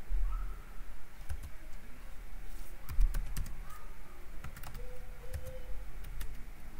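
Computer keyboard being typed slowly: a few separate, irregular key clicks as a command is entered, with one dull low thump about three seconds in.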